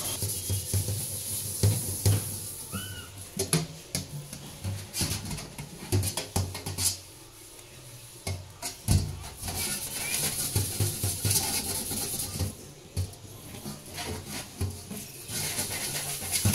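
A new carbon-steel wok being scrubbed by hand in a stainless-steel sink with a soapy sponge and steel scrubber: irregular rubbing and scraping with sharp knocks of the pan against the sink. The scrubbing strips off the factory grease coating before the wok is seasoned.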